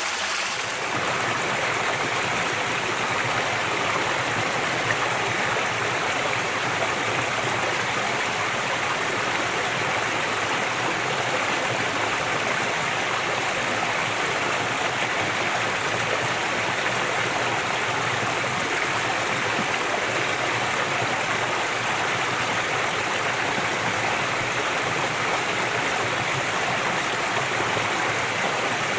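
Mountain headwater stream flowing: a steady rush of running water.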